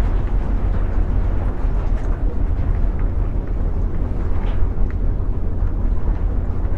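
Wind buffeting the microphone: a steady, loud low rumble with hiss over it.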